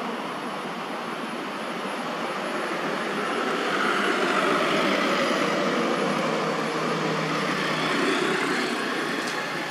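A steady rushing noise that swells about four seconds in and eases near the end.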